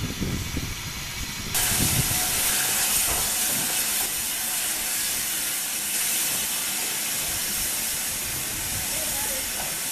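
LMS Stanier Black Five steam locomotive No. 45305, standing at the platform, letting off steam: a loud, steady hiss that starts suddenly about a second and a half in.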